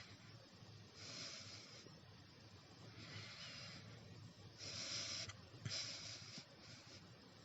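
A person with hiccups breathing faintly in and out, several separate breaths, with one short click a little past the middle.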